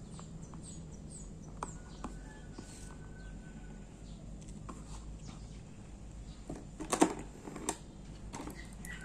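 Small scattered clicks and taps from a Seiko 6309 automatic watch movement being handled by hand during disassembly, with a brief cluster of louder clicks about seven seconds in.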